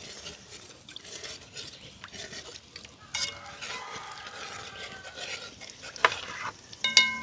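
A spoon stirring and scraping around a pot of hot oil and curry powder, with scattered clicks against the pot and a light sizzle. A thin ringing tone sounds for a couple of seconds near the middle.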